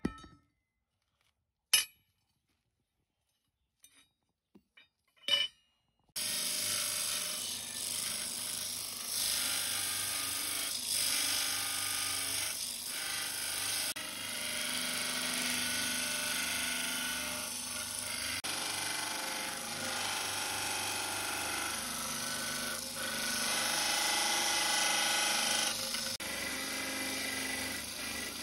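Electric belt grinder grinding the steel of a leaf-spring sword blank, a continuous rasping grind that starts about six seconds in and rises and falls as the blade is pressed to the belt. Before it, a few isolated sharp metallic strikes.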